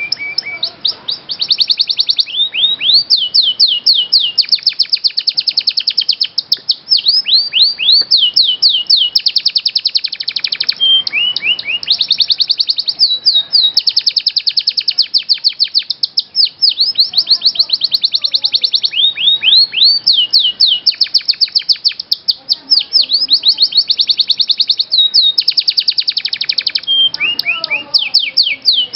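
Domestic canary singing a long, nearly unbroken high-pitched song of fast trills and rapidly repeated notes, switching to a new trill every second or two.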